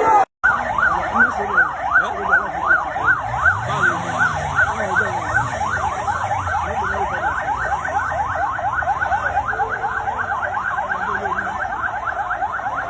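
Electronic vehicle siren sounding a rapid up-and-down wail that quickens from about two and a half to about four cycles a second. It starts abruptly after a split-second dropout.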